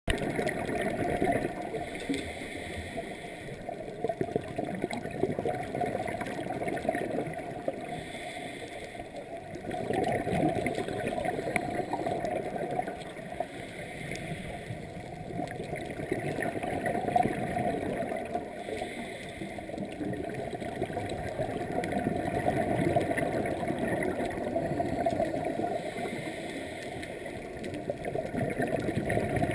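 Muffled underwater sound heard through a GoPro's waterproof housing: a scuba diver's regulator breathing, with exhaled bubbles gurgling and swelling roughly every five or six seconds.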